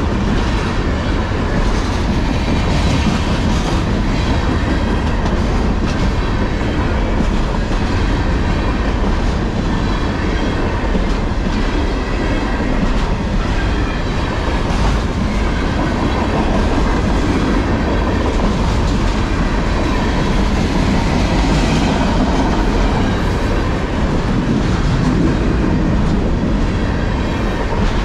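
Long freight train of container-laden flatcars rolling past at close range: a steady, loud rumble of steel wheels on rail, with wheels clicking over the rail joints.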